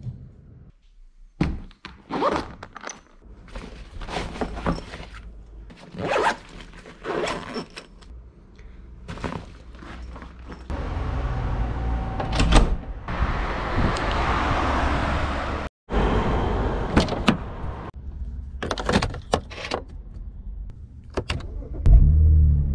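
A string of clicks, clunks and knocks from handling a front-door handle and lock and then a car door, with a stretch of steady hiss in the middle. Near the end, the BMW 135i's N54 twin-turbo straight-six starts with a loud low burst.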